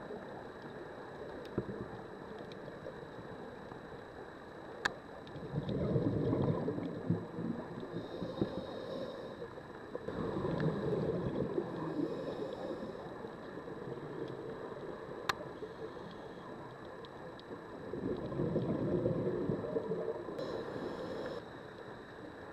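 Scuba diver's exhaled bubbles gurgling and rumbling out of the regulator in three bursts several seconds apart, heard underwater through the camera housing, with fainter hissy patches between them and a few single sharp clicks.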